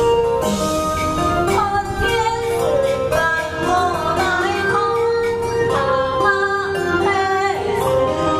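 A woman singing a Hakka opera aria, her voice gliding and wavering between held notes, over steady sustained notes from the accompanying instruments.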